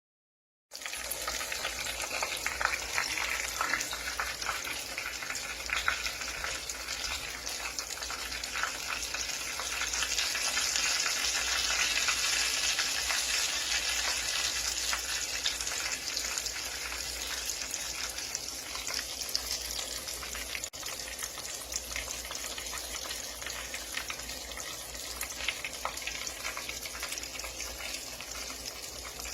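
Hot oil sizzling and crackling in a frying pan, a steady hiss dense with small pops. It starts suddenly just under a second in and grows somewhat louder around the middle before easing back.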